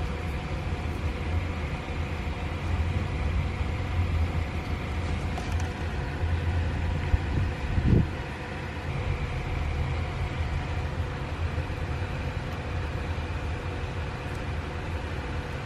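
Steady low machine hum, with a brief knock about eight seconds in.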